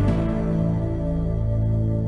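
Slow ambient music: sustained low chords held steady.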